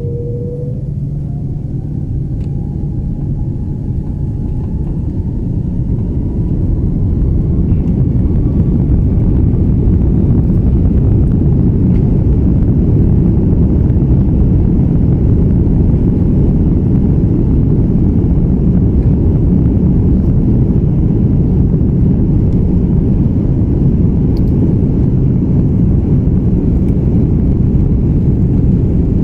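Airbus A330-300 jet engines heard from inside the cabin, spooling up to takeoff thrust. A whine rises in pitch and the sound grows louder over the first several seconds, then settles into a steady, loud rumble as the airliner rolls down the runway.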